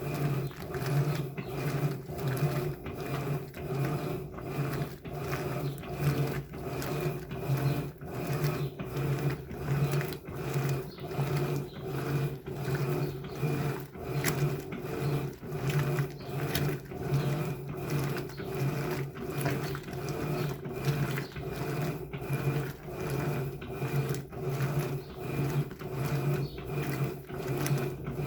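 Electrolux LBU15 15 kg top-loading washing machine agitating on its turbo agitation setting: the motor hums in even pulses about once a second as the agitator swings back and forth.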